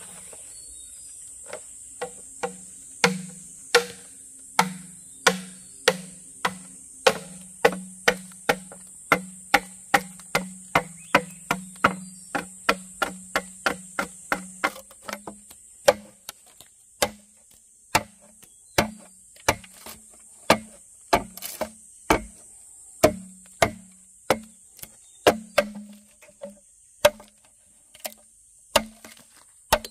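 Steady chopping on wood, about two sharp knocks a second, each with a short low ring, slowing a little in the second half. A steady high drone of insects runs underneath.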